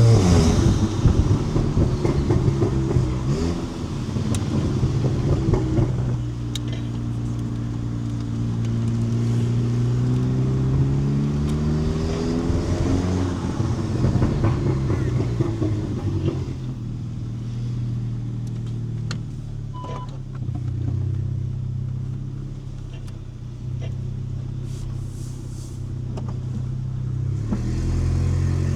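Volkswagen Mk7 Golf GTI's turbocharged 2.0-litre four-cylinder engine, exhausting through a 4.5-inch aftermarket downpipe, on the road: the note climbs steadily for several seconds under acceleration, then settles into a steady low drone at cruise. A short high beep sounds partway through.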